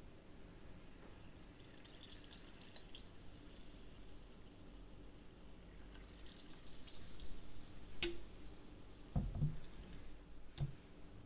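Sparkling water being poured over the fruit and fizzing, a fine crackle of bursting bubbles. A sharp clink and a few light knocks come near the end.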